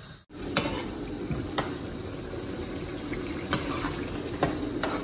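Thick spicy tamarind gravy bubbling steadily as it boils in a kadai, with a few sharp clicks over the top. The sound comes in after a brief gap at the start.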